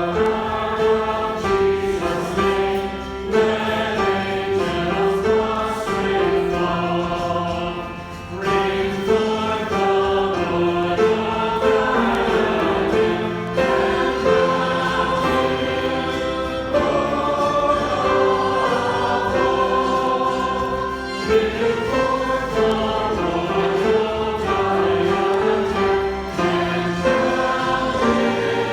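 A choir and congregation singing a hymn together, a steady stream of held sung notes moving from pitch to pitch.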